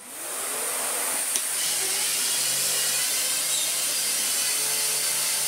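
Miele Medicair 1600 (S168) stick vacuum switching on and spinning up over about the first second, then running steadily with a high hiss of air. Its powered floor head, lights on, is pushed over carpet, adding a low hum.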